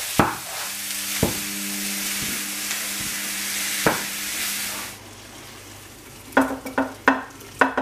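Raw beef mince hitting a hot frying pan of onions and spices and sizzling loudly, with a utensil knocking against the pan a few times. About five seconds in the sizzle dies down, and a run of quick knocks and scrapes follows as the mince is stirred and broken up.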